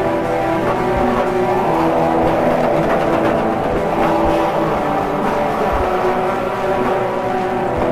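Raw, lo-fi black metal: a dense wash of heavily distorted guitar holding sustained chords that change every couple of seconds, with a few drum hits underneath.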